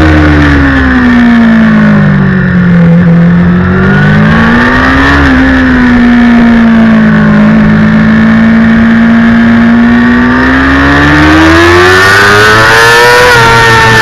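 A 2009 Kawasaki ZX-6R's inline-four engine heard from on board at racing speed. The revs fall over the first few seconds, blip briefly, hold steady through the middle, then climb steadily near the end under acceleration.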